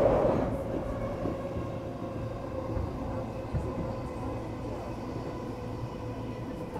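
Running noise of a JR East E233-series electric train heard from inside the car: a steady rumble of wheels on rail with a faint, even-pitched motor tone. A louder rush fades away during the first second.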